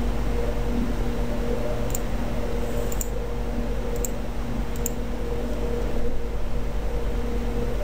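Steady background hum and hiss with a low rumble, and four light computer-mouse clicks about a second apart, starting about two seconds in.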